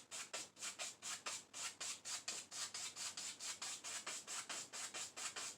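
A 1-inch brush scrubbing thin blue oil paint onto a canvas in fast back-and-forth strokes, about five a second, a dry, even scratching.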